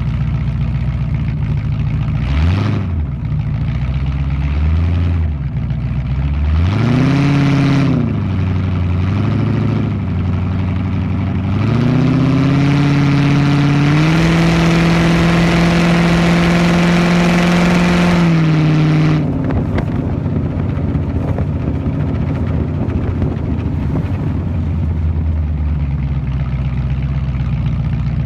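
Car engine through a 3-inch exhaust with a single 10-inch hotdog resonator. It idles low with two short throttle blips and a rev about seven seconds in, then accelerates and holds a steady high drone for about five seconds. The throttle is lifted near 19 seconds and it settles back to a low steady note.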